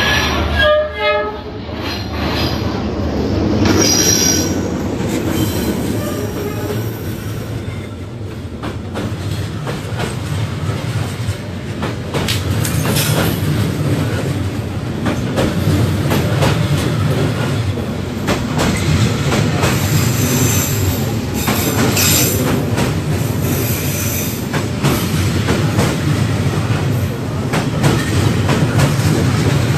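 Diesel-hauled passenger train passing at close range on a street-running track: a horn sounds briefly about a second in, then the carriages roll by with steady wheel-on-rail rumble, clattering over the rail joints and squealing now and then.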